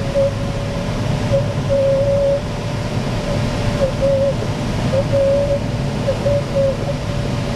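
Steady airflow noise inside the cockpit of a Cirrus 75 glider in flight, with a thin, steady high tone that wavers slightly throughout.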